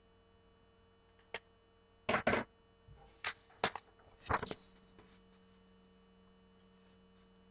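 Soft pastel worked on paper: a sharp click a little over a second in, then a handful of short scratchy strokes over the next few seconds. A faint steady mains hum runs underneath.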